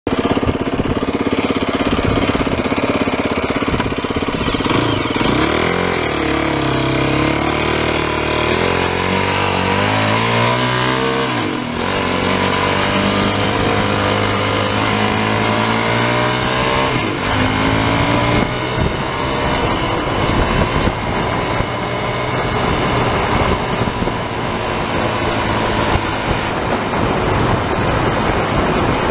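Aprilia RX125's single-cylinder 125 cc engine heard from onboard as the bike pulls away and accelerates through the gears, its pitch climbing and dropping back at each change. From about two-thirds of the way in, wind rushing over the microphone mostly drowns the engine.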